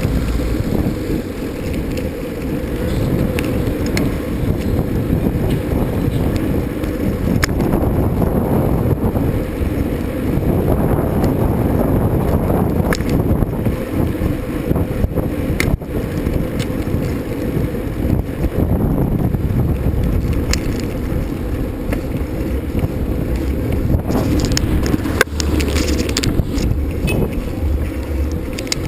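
Wind buffeting the microphone over the tyre and trail noise of a bicycle being ridden, a steady rush with a few sharp clicks and rattles near the end.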